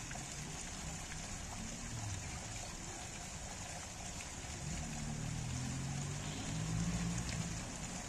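Water pouring from a spout in a stone wall onto a pile of rocks, a steady splashing trickle that runs off into a shallow stone channel. A low hum joins in about halfway through and fades near the end.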